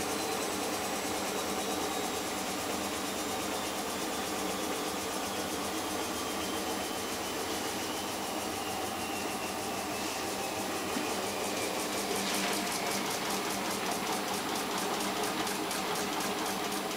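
Steady mechanical hum of a running machine. A faint whine falls slowly in pitch over the first half, and a fast, even ticking joins in after about twelve seconds.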